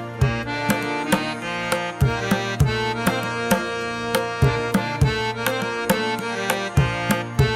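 Background music: a steady beat of sharp percussion hits, about two a second, over sustained pitched notes.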